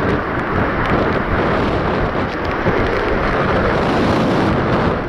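Gusty storm wind buffeting the microphone over the low rumble of a Boeing 777-200ER's jet engines as the airliner rolls out on a wet runway just after landing.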